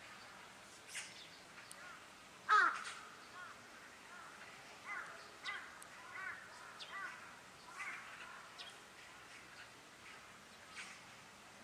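Magpies calling: a string of short harsh calls, the loudest about two and a half seconds in, then several more in quick succession over the following few seconds.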